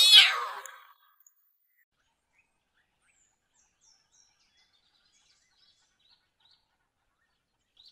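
A lion cub's loud, high mewing call in the first second, then faint scattered bird chirps.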